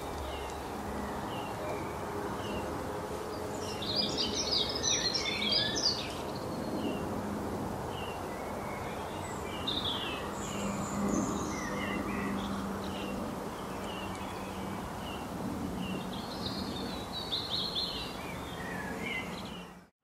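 Small songbirds calling: a short high chirp repeated about once a second, with two bursts of fast, busy chattering, about four seconds in and again near the end, over a steady hiss of forest background.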